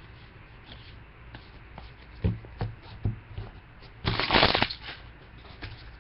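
2013 Topps Archives football cards being handled and flipped through: light flicks of card stock, a few soft knocks between two and three seconds in, and a louder half-second riffle about four seconds in.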